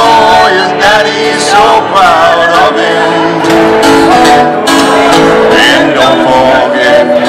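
Live acoustic music: an acoustic guitar played with a fiddle, and a voice singing over them.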